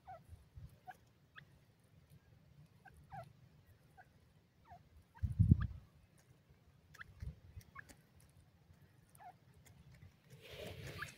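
Grey francolin giving soft, short clucking notes at scattered intervals, each a brief falling note. A dull low thump sounds about halfway through.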